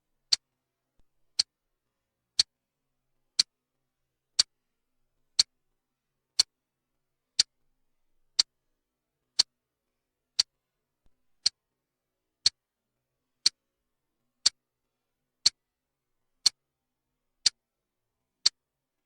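Clock-style ticking sound of a countdown timer: one short, sharp, dry tick every second, with silence between the ticks.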